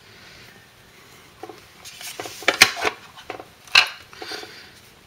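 Hands opening a sealed sports trading-card box and pulling out its cards: a string of sharp clicks and rustles of cardboard and plastic, the loudest snaps about two and a half and almost four seconds in.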